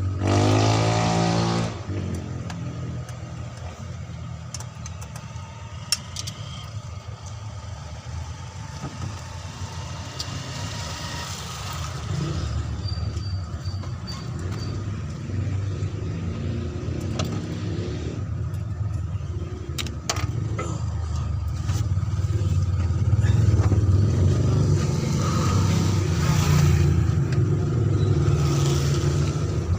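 A motor vehicle engine running steadily, rising in pitch in the first second or two and getting louder in the last several seconds, with a few sharp metallic clicks.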